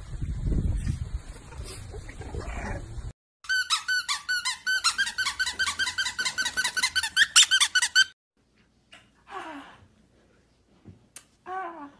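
Rapid, regular high-pitched squeaking, about five squeaks a second for some four seconds, following a stretch of rumbling wind-like noise that cuts off abruptly. A few short falling cries follow the squeaking.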